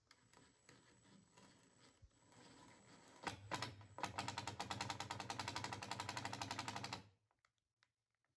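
A small power tool running with a fast, even rattle for about three seconds, after a brief first burst, then stopping abruptly.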